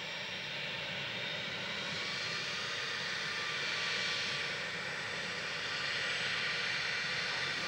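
Airbus A320-214's CFM56 jet engines running at taxi power as the airliner rolls along the taxiway after landing: a steady whine with several high tones over a rushing noise, slowly getting louder as it comes closer.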